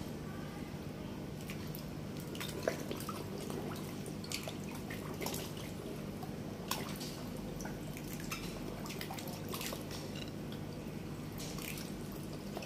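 Koi splashing and slurping at the water surface as they crowd together, a run of irregular drips and small splashes, two of them sharper, over a steady low hum.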